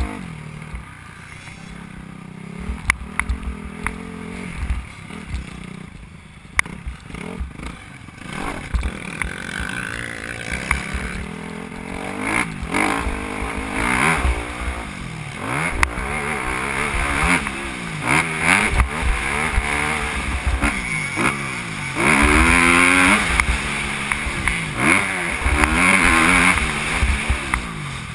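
Motocross bike engine heard from on board while riding a dirt track. It is lower and broken by sharp clicks and knocks at first, then from about halfway it revs up and down again and again through the gears, loudest near the end.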